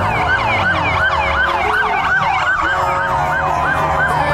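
Police car sirens in a fast yelp, rising and falling about three times a second, with a second siren overlapping, over a low rumble.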